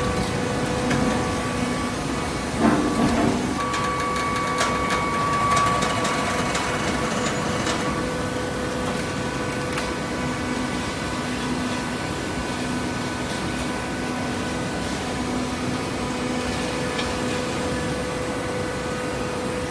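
Hydraulic cardboard baler running with a steady mechanical hum. A brief clatter of knocks comes about three seconds in.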